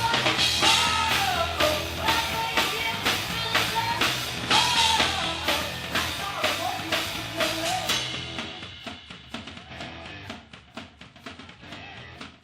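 Punk-influenced rock band playing live, a woman singing over drum kit, bass and guitar; the vocal line stops about seven seconds in and the drum hits carry on as the music fades out.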